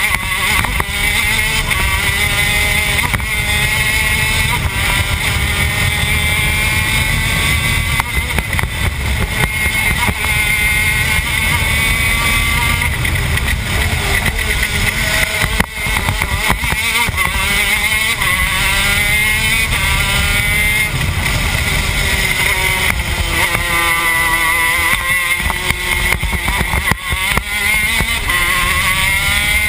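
TM K9C 125 cc two-stroke shifter kart engine at racing speed, its pitch climbing and falling again and again as it revs up the straights and drops back for the corners, over a heavy rush of wind on the onboard microphone.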